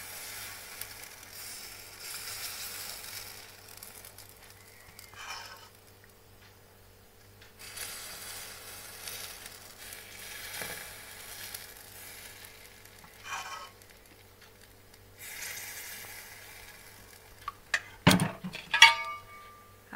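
Rice-flour batter sizzling as it is poured into the hot cavities of a non-stick pithe mould pan, in several stretches of hiss as each cavity is filled. Near the end come a few sharp metal clinks with a short ring, the loudest sounds here.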